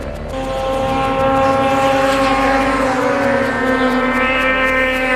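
Racing snowmobile engine running at high revs: a steady, high-pitched note that sags slightly around the middle and climbs again near the end.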